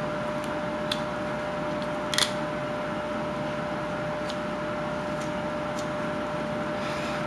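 Carving knife slicing shavings off a wooden toy-gun blank: about six short, sharp cuts, the loudest about two seconds in, over a steady background hum.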